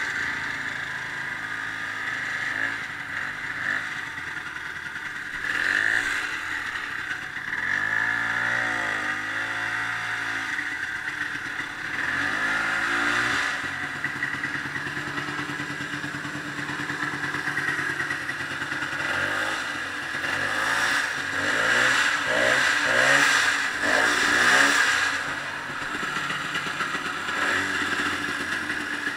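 Ski-Doo snowmobile engine running under way, its pitch rising and falling several times as the throttle is opened and eased off.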